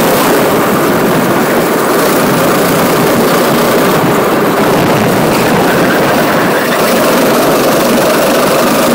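Go-kart engine running hard, heard from on board the moving kart: a loud, steady engine noise with no let-up.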